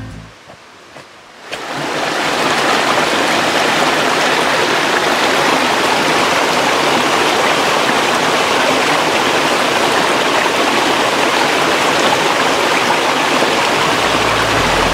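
A creek rushing over rocks: a loud, steady hiss of running water that comes in about a second and a half in.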